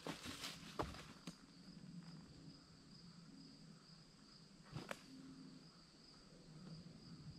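Faint, steady high-pitched insect trilling in the woods, with a few soft clicks and a knock as the hammock's suspension strap is handled at the tree.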